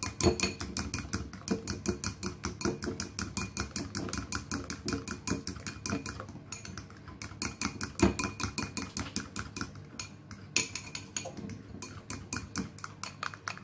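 A fork beating a thin mixture of melted Oreo cream filling and milk in a glass bowl, its tines clicking and scraping against the glass about six times a second.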